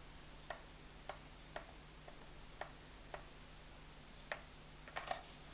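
Faint, sharp clicks from a hot glue gun's trigger feed as glue is squeezed out onto a plastic perler bead plate, about eight clicks at uneven intervals of roughly half a second, the last few a little louder.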